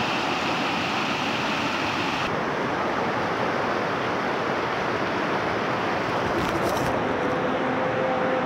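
Steady rush of a shallow river running fast over rocks. A thin high steady tone stops abruptly about two seconds in.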